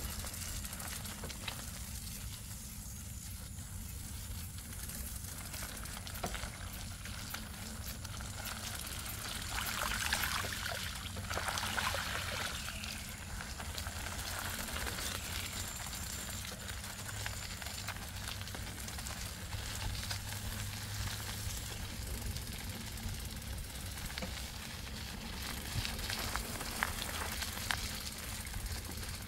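Bicycle tyres rolling through wet mud and puddles, a steady wet hiss that grows louder about ten seconds in, over a low rumble.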